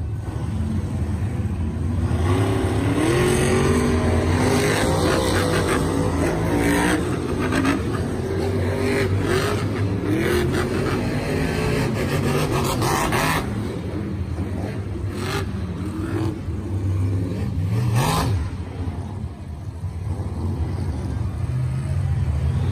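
Monster truck engines revving hard, their pitch rising and falling as the trucks drive, with several sharp bangs along the way.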